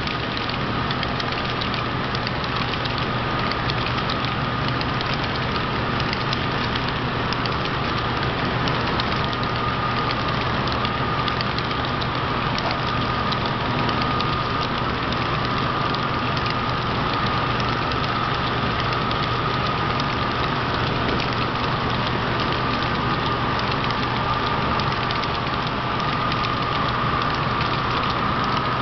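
HO scale model freight train rolling past on the layout track: a steady rumble of small metal wheels on rail with many fine clicks, over a steady low hum and a slightly wavering mid-pitched whine.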